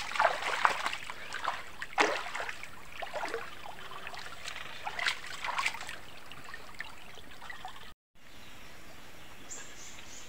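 River water flowing and trickling, with irregular small splashes over the first six seconds, then a steady rush of water. It cuts out abruptly for a moment near the end.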